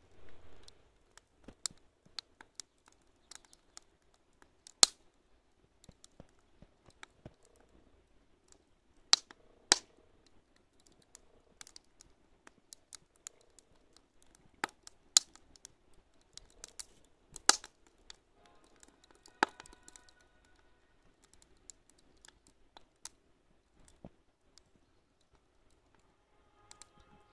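Firewood burning in a steel barbecue grill, crackling with irregular sharp pops and snaps, about half a dozen of them loud.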